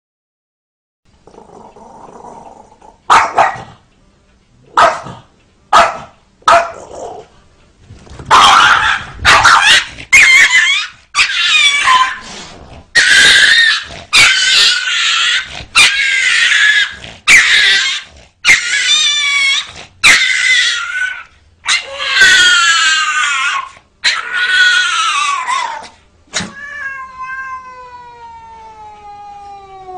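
A small dog and a cat squabbling: a few short yaps, then a run of long, loud, rough yowling and growling calls, one after another. Near the end a single long yowl slides down in pitch.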